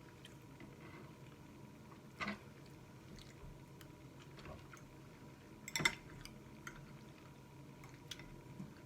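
Faint, close-miked eating sounds from a mouthful of spaghetti with meatballs: soft wet mouth noises with a few sharp clicks, the loudest about six seconds in.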